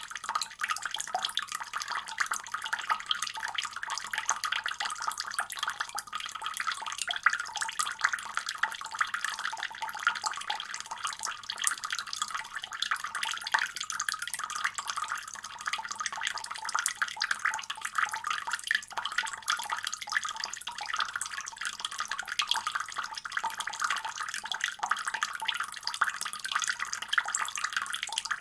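Water running steadily from a faucet: an even, splashy hiss, bright and thin with little low rumble.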